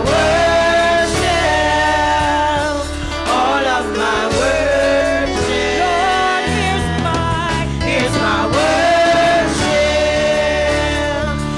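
A group of women singing a gospel worship song together into microphones, with long held notes, over instrumental accompaniment.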